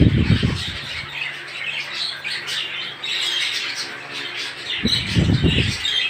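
A flock of caged budgerigars chattering and squawking without pause, many short high calls overlapping. Two brief low rumbling bursts come through, one at the start and one near the end.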